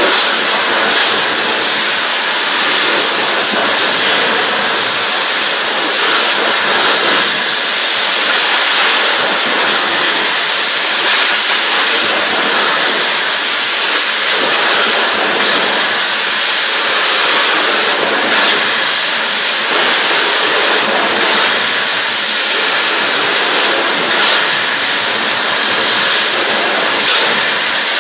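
Ultra-high-pressure water jet at 1200 bar from an automatic pipe-cleaning head, blasting continuously with a loud, steady hiss.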